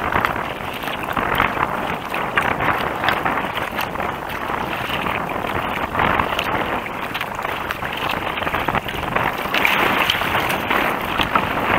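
Choppy, wind-driven water slapping and splashing against a kayak's bow, with wind buffeting the microphone. The splashing grows heavier near the end as a wave sends spray over the bow.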